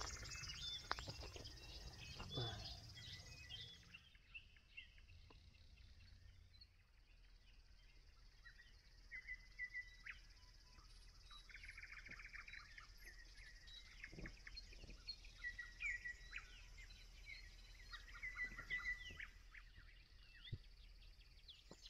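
Faint dawn birdsong: small birds chirping and twittering in short scattered phrases. A steady high insect trill runs under it and fades about four seconds in.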